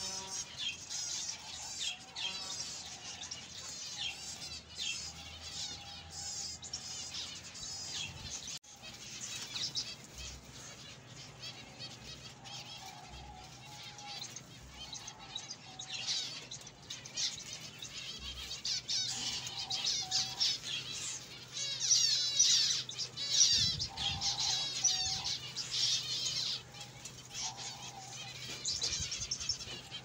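Many small birds chirping and chattering in quick, overlapping calls, getting loudest about two-thirds of the way through.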